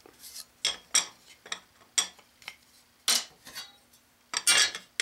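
A string of sharp clicks, taps and short scrapes of hand tools being handled on a workbench, with a longer rattling clatter about three seconds in and the loudest near the end: a ruler laid down on the bench and a square picked up and set against the workpiece.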